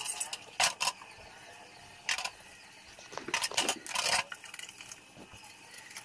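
Plastic refrigerator trays and ice-cube trays knocking and clattering as they are handled and set down on a stainless-steel sink and counter: a few separate sharp knocks, then a quick run of them about three to four seconds in.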